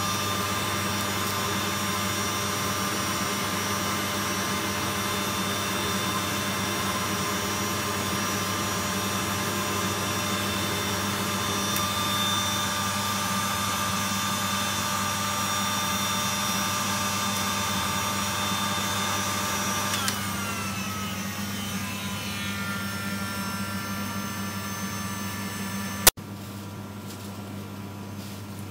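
Handheld electric blower running steadily, blasting air into burning charcoal to fan the coals. About 20 seconds in it is switched off and its whine falls in pitch as it spins down. A sharp click near the end, then a quieter steady hum.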